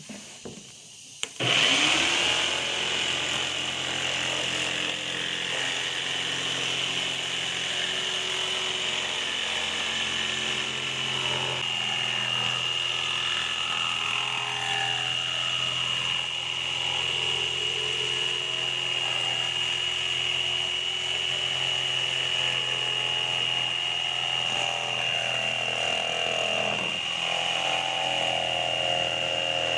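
Electric power tool switched on about a second in, then running steadily with a high whine and a slowly shifting lower hum as it works.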